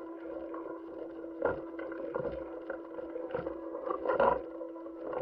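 Audio of a spacewalk helmet-camera recording: a steady electrical or fan-like hum with irregular muffled knocks and rustles, the loudest a little after four seconds in.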